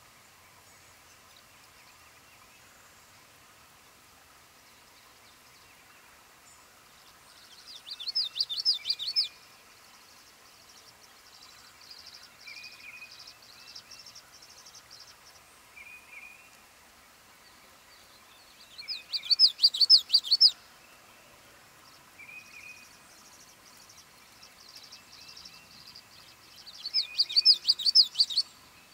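A songbird singing three loud, rapid, bubbling warbles, each about a second and a half long, with softer short chirps between them.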